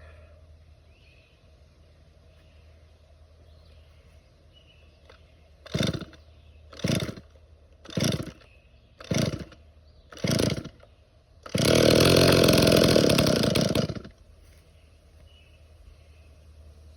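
Chainsaw being pull-started: five quick pulls about a second apart, then the two-stroke engine catches and runs loudly for about two seconds before cutting out.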